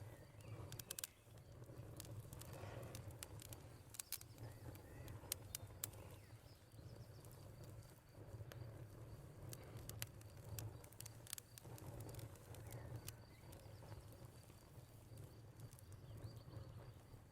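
Wood fire crackling quietly, with scattered sharp pops over a low steady rumble, under a thin steady high-pitched cricket trill and occasional faint bird calls.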